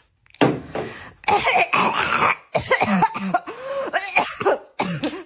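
A person coughing repeatedly, a run of about five harsh coughs mixed with throat clearing.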